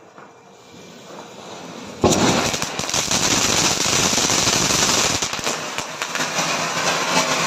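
Ground fountain firework (anar) catching about two seconds in with a sudden whoosh, then gushing sparks with a steady loud hiss and crackle.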